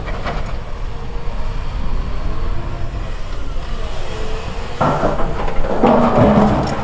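Cat 340F hydraulic excavator's diesel engine running with a steady low rumble, growing louder and fuller about five seconds in as the machine works under load.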